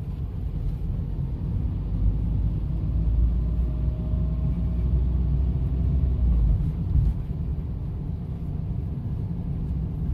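Car engine and road noise heard from inside the cabin, a steady low rumble.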